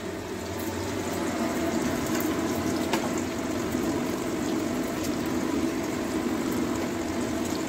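Steady watery rushing and bubbling from an aluminium pot of boiled rice and vegetables as it is handled at the stove.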